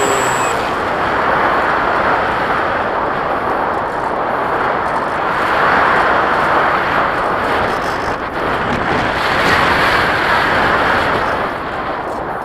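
Airflow rushing over a model plane's onboard camera as it glides low, swelling and easing in slow waves. The high whine of its electric motor cuts off about half a second in, so the plane is flying with the motor off.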